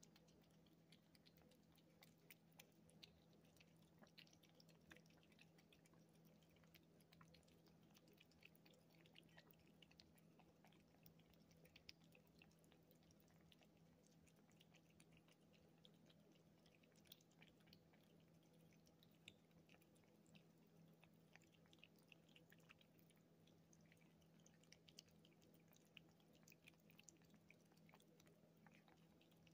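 Faint, wet licking and smacking of two kittens lapping Churu cat-treat puree off a plate: a steady, irregular stream of small clicks, with a low hum beneath.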